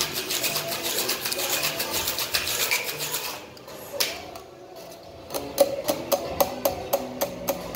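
Ice rattling fast inside a metal cocktail shaker for about three seconds, then a single knock about a second later as the tins are broken apart. Near the end comes a run of evenly spaced, ringing metallic clinks, about four a second, from the ice and the metal shaker tins.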